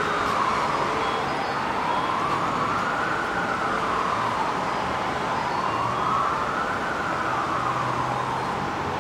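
Emergency vehicle siren on a slow wail, its pitch rising and falling about every three and a half seconds, over steady background noise.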